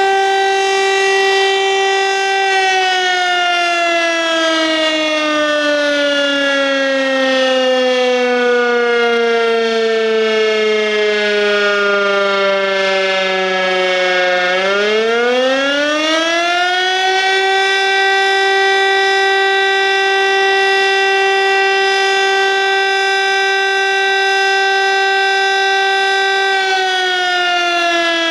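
Fire brigade siren sounding the alarm that calls out the volunteer firefighters. A steady wailing tone holds, then slides slowly down in pitch for about twelve seconds. It rises quickly back to the steady tone, holds for about twelve seconds, and begins to fall again near the end.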